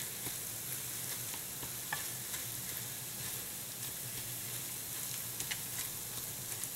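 Riced cauliflower and cream cheese sizzling steadily in a hot skillet while a silicone spatula stirs and breaks them up, with a few light clicks.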